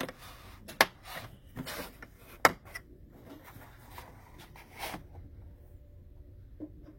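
Hand tools being handled in a toolbox drawer: a few sharp clicks and knocks of metal and plastic in the first five seconds, then quieter handling.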